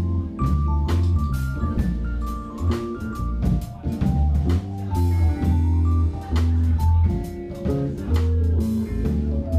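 A jazz-fusion band playing live: electric bass and drum kit under electric guitar and keyboard lines, with a cymbal wash about five seconds in.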